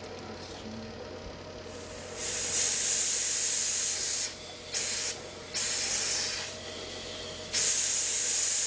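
A steady machine hum, with bursts of loud hiss from a jet of air or gas cut in over it from about two seconds in: one about two seconds long, a short one, one about a second long, and a last one that is still going at the end. Each burst starts and stops abruptly.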